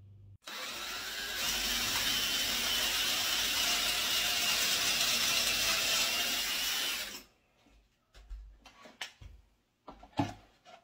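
Cordless drill running steadily as it bores a pocket hole through a Kreg pocket-hole jig into a wooden board, for about seven seconds before it stops. A few light knocks follow as the jig and board are handled.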